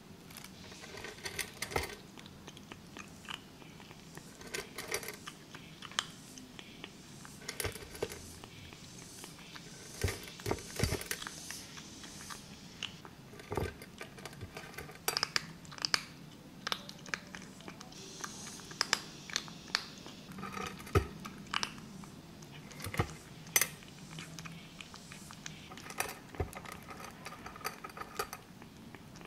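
A kitten crunching and chewing dry kibble close up, in irregular crunches with short pauses between them.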